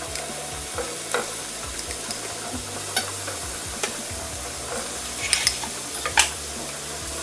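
Marinated beef slices sizzling in a hot nonstick frying pan as more pieces are laid in, with a few sharp clicks of metal tongs against the pan.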